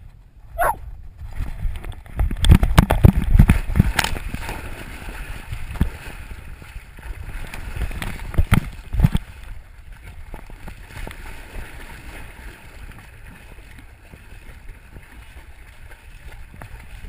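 Water splashing and sloshing against a camera strapped to a dog's back as the dog bounds into a creek and swims, with heavy thumps and splashes about two to four seconds in and again near nine seconds, then steadier sloshing.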